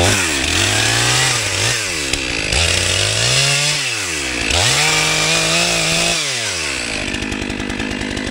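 Two-stroke chainsaw making the felling back cut in a tree trunk: engine at full throttle in three bursts, its pitch rising and sagging under load, then dropping to idle about seven seconds in.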